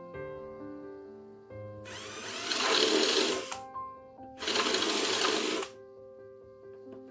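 Electric drill running in two bursts, the first about two seconds long and the second about a second and a half, over soft background piano music.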